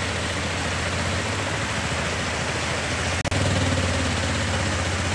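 Auto-rickshaw engine running steadily with a low pulsing hum, over the even rush of floodwater pouring across the road. The sound cuts out for an instant about three seconds in.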